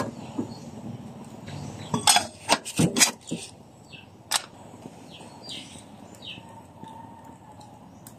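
A metal pot lid being set onto a blackened cooking pot over a wood fire: a quick run of metal clinks and knocks about two to three seconds in, and one more knock a little later. After that there is only a low background with a few faint chirps.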